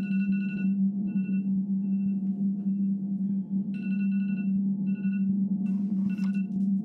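Smartphone alarm going off: a clear electronic chime tone repeating in short bursts of uneven length, over a steady low drone.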